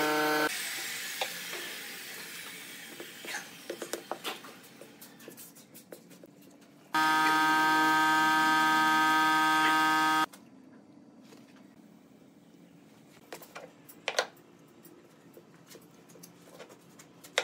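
A machine's steady electric buzz runs for about three seconds and cuts off abruptly. Around it come light knocks and clicks of wooden discs being handled and set down on a table.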